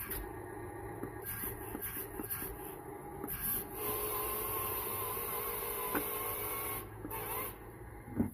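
Top Race radio-control toy forklift's small electric motors and gears whining as it reverses and drives away. The whine is steadier and louder from about four seconds in until nearly seven, with a sharp click about six seconds in and a knock just before the end.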